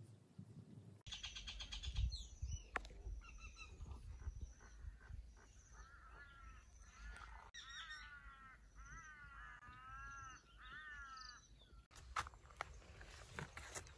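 Birds calling outdoors, faint: short high chirps repeated through, and a run of wavering calls about halfway through.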